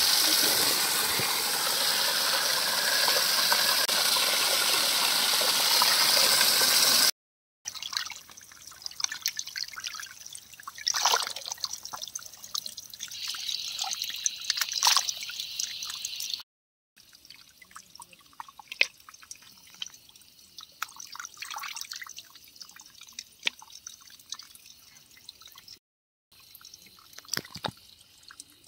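A strong stream of water pouring and splashing into a bowl of raw chicken pieces for about seven seconds. After that come quieter splashes and drips as the pieces are washed by hand in a basin of water, fading to scattered drips near the end.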